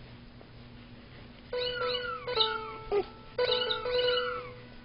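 Virtual keyboard app on a touchscreen sounding short cat-meow notes as its keys are tapped. The notes come in quick runs of several at a time, starting about a second and a half in, with a short break just after three seconds before another run.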